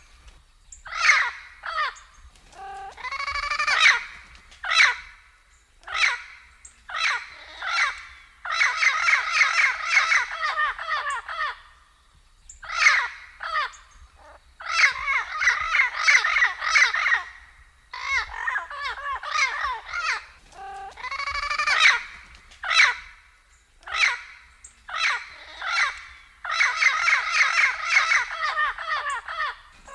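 Blue-fronted amazon parrot calling: a string of harsh squawks, some short and single, others drawn out into rapid rasping runs of two to three seconds, with brief pauses between them.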